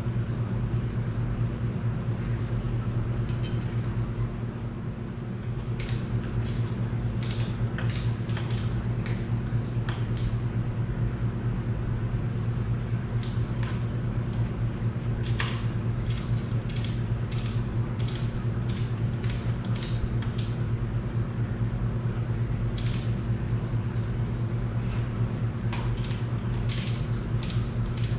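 Ratchet wrench clicking in short runs with pauses between, as the nuts are run down onto the cylinder head studs of a Farmall Super C, over a steady low hum.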